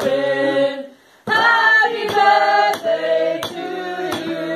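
A small group singing a birthday song together in chorus, breaking off briefly about a second in and then carrying on. Sharp beats keep time roughly every 0.7 seconds under the voices.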